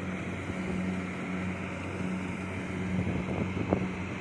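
Kubota DC70 Plus combine harvester running steadily, its diesel engine giving a low, even hum over the whirr of the cutting machinery, with a few faint ticks near the end.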